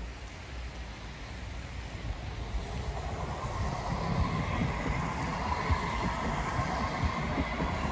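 Electric tram passing close by, its motor whine rising and the sound swelling over the second half, with low thuds from the wheels on the track. Wind noise on the microphone throughout.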